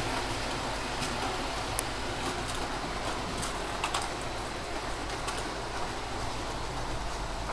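OO gauge model diesel locomotive and wagons running along the track: a steady rushing rolling noise with scattered light clicks as the wheels pass over rail joints.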